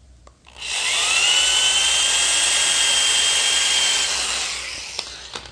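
A small electric rotary power tool spins up about half a second in and runs steadily with a high whine for about four seconds, then trails off near the end. It is clearing splinters out of the tube so the cable can pass.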